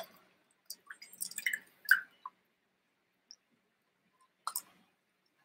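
Short clicks and clinks from a metal cocktail shaker, its strainer and the ice inside as a shaken cocktail is strained into a glass. Several come close together in the first two seconds, then another pair about four and a half seconds in.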